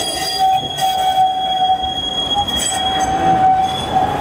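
Tram running on its rails, with a steady high-pitched whine over the rumble of the running gear.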